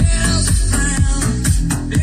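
Music with a heavy bass beat, played back through a homemade three-way speaker box with a 6-inch mid-bass driver.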